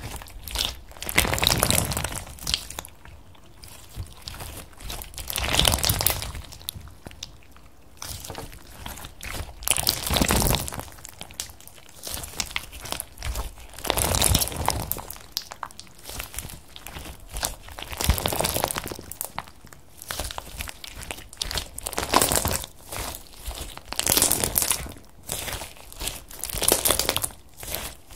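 Clear slime packed with small colourful beads being squeezed, folded and kneaded by hand, in loud bursts every few seconds as the hands press and pull it, with quieter handling between.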